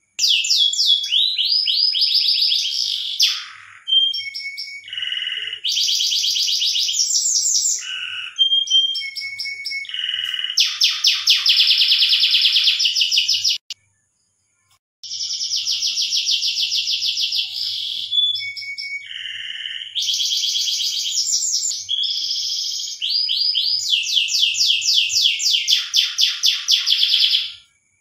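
Domestic canary singing in long phrases of fast, rapidly repeated trills and rolls, the song of a canary in breeding condition. The song breaks off for about a second midway, and stops abruptly near the end.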